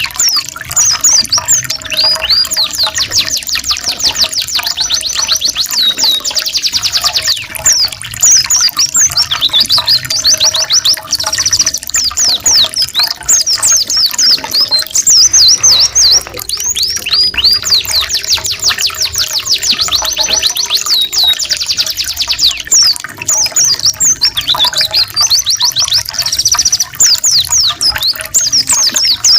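Domestic canary and Oriental white-eye (pleci) song: fast rolling trills and rapid high chirps, overlapping with no pause.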